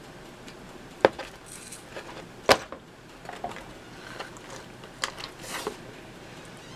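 Sharp clicks and light knocks of hands handling pizza in a cardboard pizza box. Two loud clicks come about one and two and a half seconds in, followed by several softer taps and rustles.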